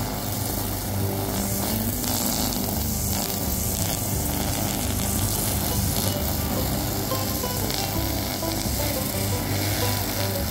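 Backpack brush cutter's small engine running steadily with its nylon string line whirring through grass, a continuous hiss over the engine hum.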